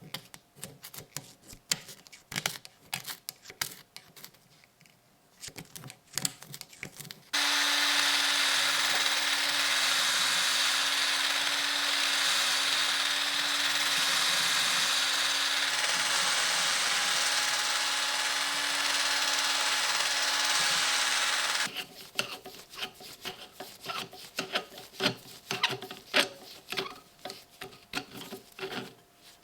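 A small power tool runs steadily for about fourteen seconds, a constant hum under a hiss. Before and after it come stretches of light clicks and taps as small parts are handled.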